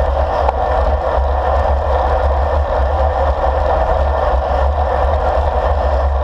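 Steady wind rumble and road noise on a handlebar-mounted action camera of a road bike riding along.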